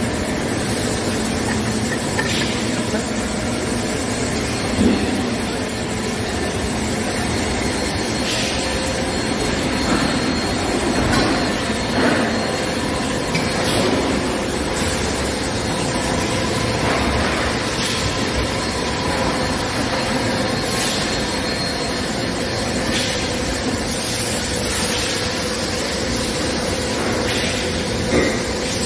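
Steady mechanical drone of hydraulic injection moulding machinery running in a factory hall, with brief clanks and hisses every few seconds.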